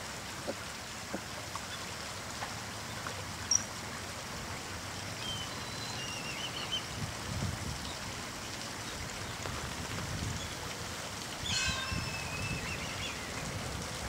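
Steady rush of flowing stream water, with short bird chirps about halfway through and again a few seconds before the end. A single sharp click stands out a few seconds in.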